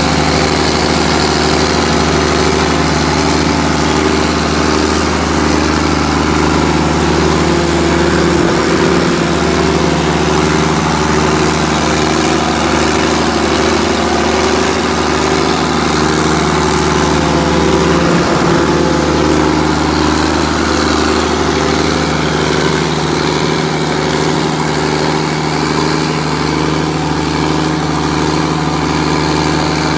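Diesel generator set's John Deere 6068 six-cylinder diesel engine running, a loud, even drone that holds one steady speed.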